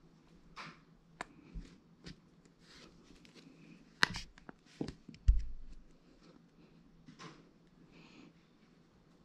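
Smartphones and a phone case being handled: soft rustling with scattered light clicks and taps, a sharp click about four seconds in and a low thud about a second later.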